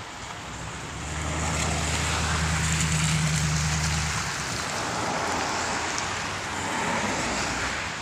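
A pickup truck's engine running close by on a wet, slushy road: a steady low hum for about three seconds, then fading, over a continuous hiss of tyres and traffic.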